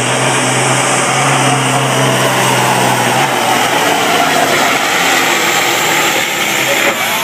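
Semi-truck's diesel engine running at full throttle while dragging a pulling sled, loud and steady, with a deep drone that drops away about three seconds in as the pull ends and the engine keeps running.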